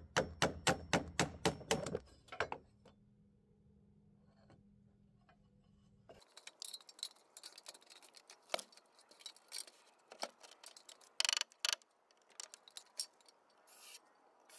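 Building work on timber: a quick, even run of about nine sharp knocks in the first two seconds, then, after a cut, scattered knocks and clicks of varying strength.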